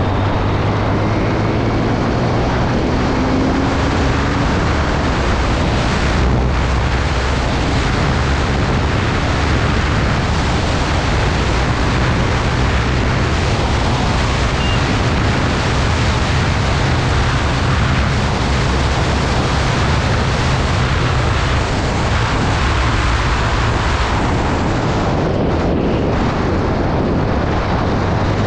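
Bajaj Pulsar 125's single-cylinder engine running hard on a full-throttle top-speed run, with heavy wind noise on the microphone.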